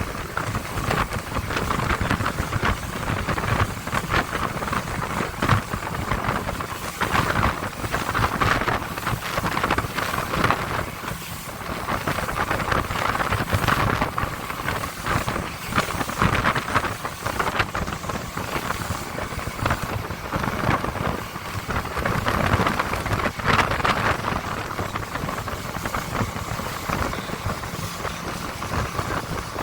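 Small motorboat under way: engine running with water and wind rushing past, a steady noise that surges and fades every second or two.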